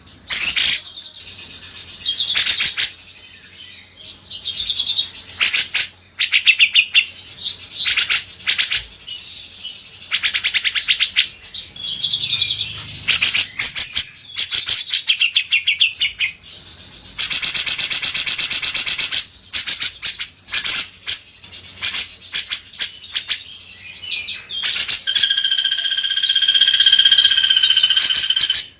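Songbird master recording of cucak jenggot (grey-cheeked bulbul) and kinoi song: loud bursts of rapid chattering trills and whistled phrases every second or two, with a long fast rattle about two-thirds of the way through and a held whistled note near the end.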